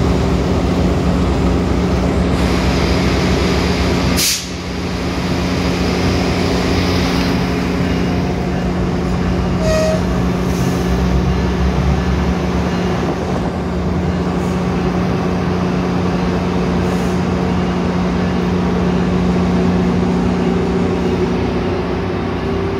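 EMD GP38 diesel-electric switcher locomotive's 16-cylinder two-stroke engine running with a steady drone as it works a string of tank cars. The sound breaks briefly about four seconds in.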